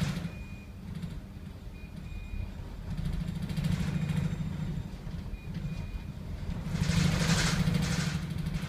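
Low rumble of a ship under way through sea ice. It swells twice, about three and a half and seven seconds in, and the second swell brings a rushing noise.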